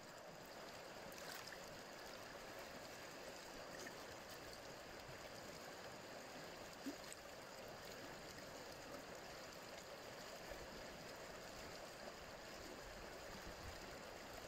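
Shallow, stony alpine river running over riffles: a steady, soft rush of flowing water. One brief faint tick about seven seconds in.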